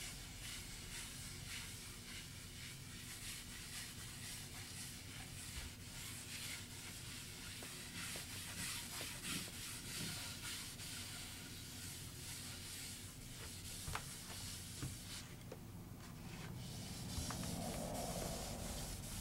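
Cotton rag wiping wood stain onto an oak table top: a soft, uneven swishing of cloth on wood. There is a short pause about three-quarters of the way through.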